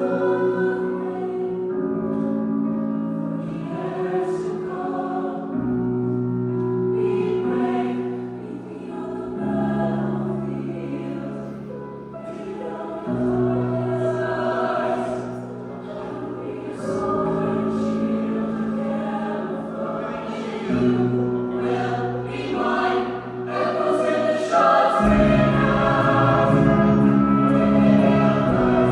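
A choir singing held chords that change every few seconds, with music underneath; deep bass comes in strongly near the end and the sound grows louder.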